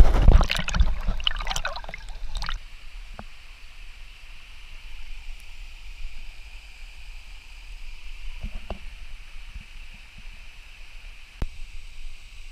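Water splashing and sloshing around a camera held at the surface of a swimming hole for the first two seconds or so, then a steady high hiss with a few light knocks.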